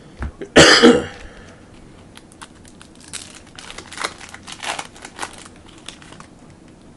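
A man coughs once, loudly, about half a second in, then a foil trading-card pack wrapper crinkles and tears in irregular crackles for several seconds.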